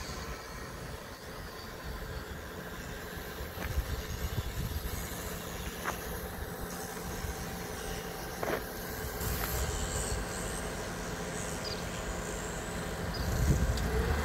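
Yale GLP050 forklift's propane-fuelled engine running steadily while the forks come down the mast, with a few sharp clicks in the middle. Near the end the engine revs up briefly.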